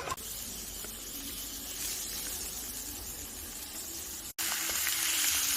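Food sizzling in a hot pan: a steady hiss with faint scattered crackles. It cuts off sharply about four seconds in and comes back louder.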